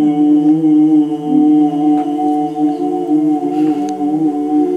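Men singing unaccompanied, holding one long, slightly wavering note at the end of a song.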